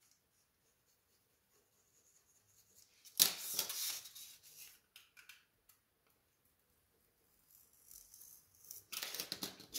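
Utility knife blade slicing through a styrofoam plate on a cutting mat, a few short scratchy cuts. The loudest comes about three seconds in after a quiet start, with more cutting near the end.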